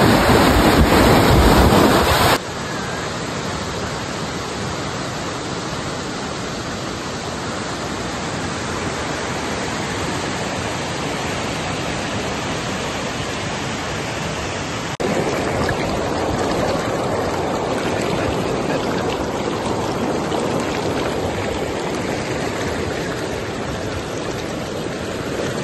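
River rapids: fast water rushing and churning over boulders, a steady rushing noise. It drops abruptly a little about two seconds in and gets abruptly louder again about fifteen seconds in.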